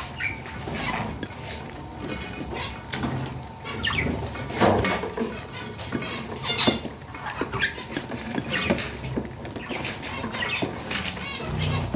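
Budgerigar chicks squeaking, mixed with scattered short clicks and taps.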